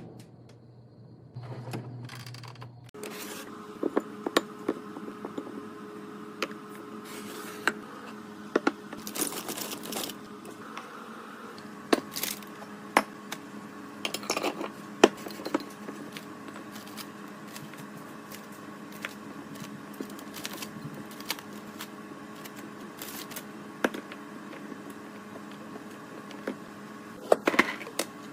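Items being handled and set down while a fridge is stocked and arranged: many short clicks, taps and clinks at uneven intervals over a steady hum.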